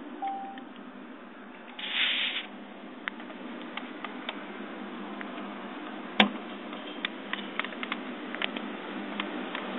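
Handling noise from a handheld camcorder: a short beep near the start, a brief hiss about two seconds in, then scattered small clicks of buttons and casing, with one sharp click about six seconds in, over steady background noise.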